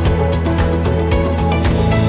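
Background music with a steady beat over sustained low notes.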